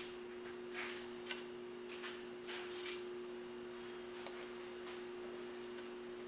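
Soft rustles and light touches of a gloved hand setting filled macarons down on a metal baking tray, a handful of them in the first three seconds, over a steady low machine hum.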